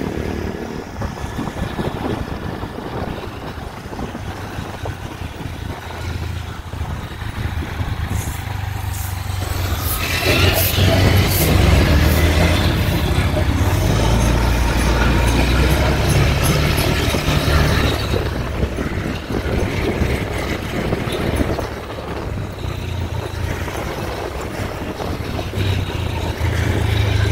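Motorcycle riding along a street: the engine runs under a low wind rumble on the microphone, growing louder and noisier about ten seconds in for several seconds.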